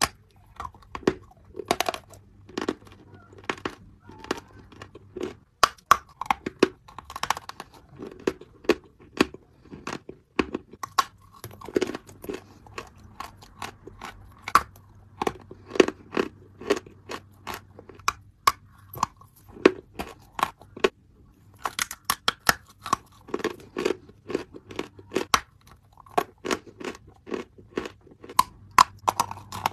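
Close-miked biting and chewing of a block of white chalk: many sharp, irregular crunches and crackles as it breaks between the teeth, mixed with wet, pasty chewing.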